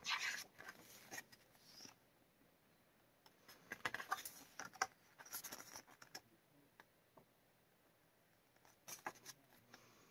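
Photobook pages being turned by hand: soft paper rustling, a short burst at the start, a longer stretch of rustles in the middle and a brief one near the end.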